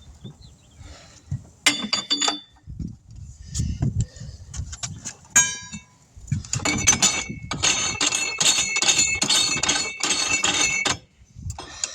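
Steel tire tools and tire-changer parts clanking and ringing: a single ringing clank about two seconds in, another around five seconds, then a run of quick metallic clinks, about three a second, from about six seconds in until near the end.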